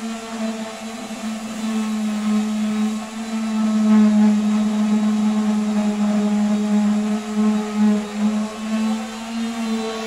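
Handheld electric sander running against a wooden board, a steady motor whir that swells and dips in loudness as it is pressed and moved over the wood.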